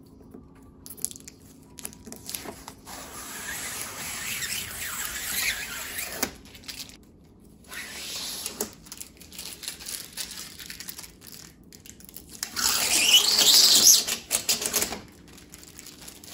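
Thin protective plastic film being peeled off a new TV's glossy bezel and screen, crackling and tearing in several stretches, with the longest and loudest peel about three-quarters of the way through.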